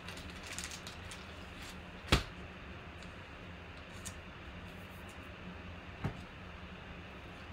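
Trading card being handled in plastic sleeves and top loaders: light rustling with two sharp clicks, a loud one about two seconds in and a softer one about six seconds in, over a steady low hum.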